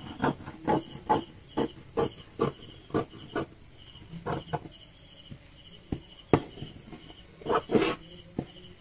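Scissors snipping through mesh fabric, about two to three snips a second for the first few seconds. After that come a few scattered snips and clicks and a louder burst of cutting near the end.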